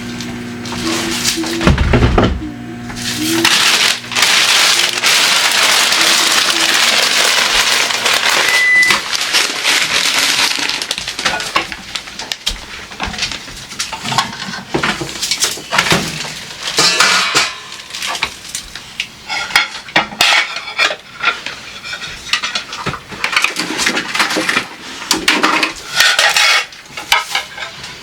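Dishes and cutlery being handled and put away: a steady rushing hiss for several seconds, then many quick clinks and clatters of crockery and silverware.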